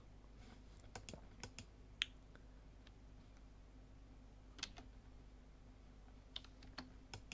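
Faint, scattered computer keyboard and mouse clicks, about ten of them and the clearest about two seconds in, over a faint steady electrical hum.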